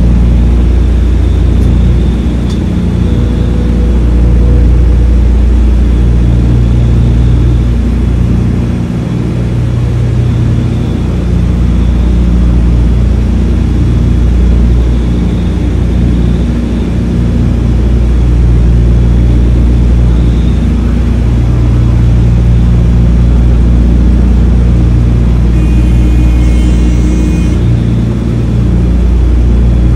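Douglas DC-3's twin radial piston engines and propellers droning loudly and steadily, heard from inside the aircraft. The level swells and eases slowly as power is set on the approach to landing.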